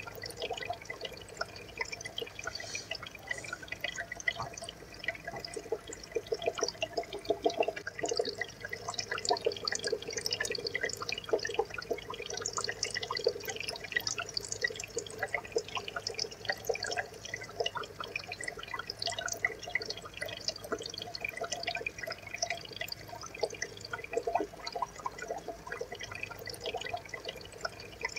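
Aquarium water trickling and bubbling steadily, a dense, irregular patter of small drips and splashes.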